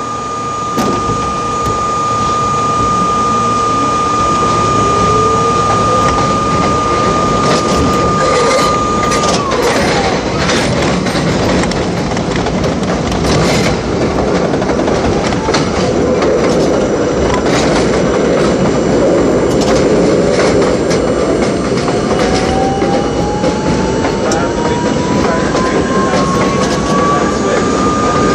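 R32 subway train pulling out and accelerating, its motor whine rising in pitch, with wheels clacking over rail joints and switches about ten seconds in. The whine climbs again over the last few seconds as the train gathers speed.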